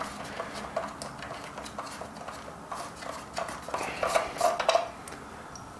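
Light metallic clicks, clinks and scrapes of a hand tool working loose the 5/8 nut that holds the timer switch on a coffee grinder's chassis, with a busier run of small rattles about three and a half seconds in.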